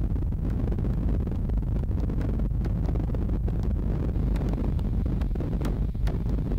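Steady low rumble of road and engine noise heard from inside a car cruising at highway speed.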